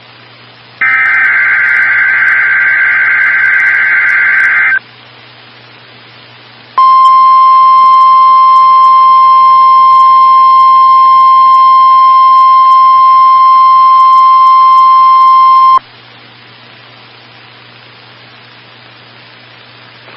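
NOAA Weather Radio SAME header data bursts: one ending right at the start, then a second lasting about four seconds. After a short pause the steady 1050 Hz warning alarm tone sounds for about nine seconds and cuts off, leaving only a low hum and hiss on the broadcast. This is the weekly test of the public warning signal that sets off weather alert receivers.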